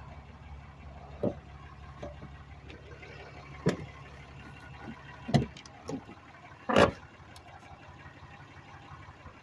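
2018 Ram 3500 pickup's engine idling with a steady low hum, while several sharp knocks and thumps sound over it, the loudest a heavy thump about seven seconds in.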